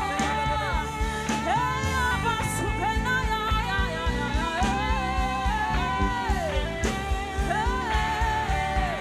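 A solo voice singing long, sliding, wordless phrases over a worship band's steady sustained accompaniment and bass.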